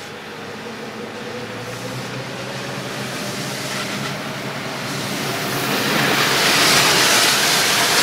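Four-wheel-drive vehicle's engine running as it drives into flood water on a dirt road, with a rushing splash of water that builds and is loudest near the end.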